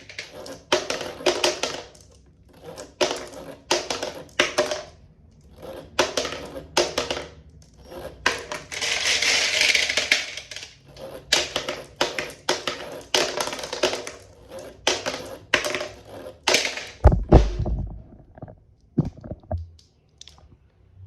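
Marbles rolling and clattering down a plastic marble run toy, in quick repeated rattling runs, with a steadier rush of rolling for about two seconds in the middle and a low thump about seventeen seconds in.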